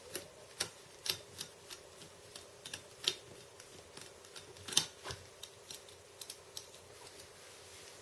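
Screwdriver turning out small screws from an aluminium drive adapter plate: irregular light metallic clicks and ticks, with one louder clack a little past halfway.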